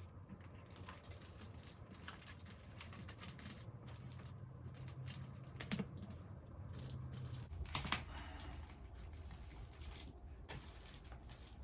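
Irregular light clicks and taps of small items being handled and set in place, with a couple of sharper knocks and a faint low hum underneath.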